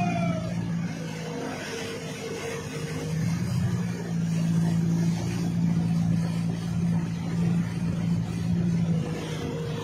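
Motorboat engine running at a steady pitch as the boat moves through floodwater, with a wash of water noise.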